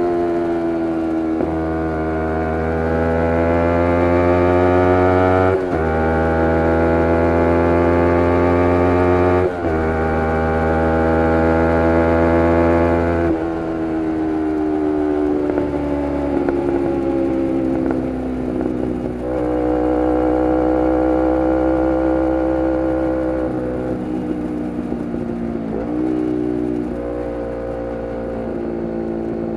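A 2011 Kawasaki Ninja 250R's parallel-twin engine through a full Graves race exhaust, accelerating up through the gears: the pitch climbs, breaks briefly at each upshift about every four seconds, and climbs again. From about halfway through it runs lower and slowly falls as the rider eases off, with two more brief shifts near the end.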